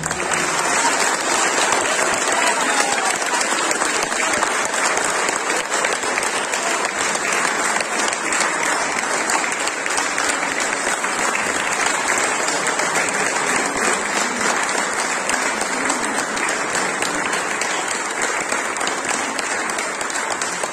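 Audience applauding: a dense, steady patter of many hands clapping that eases off slightly near the end.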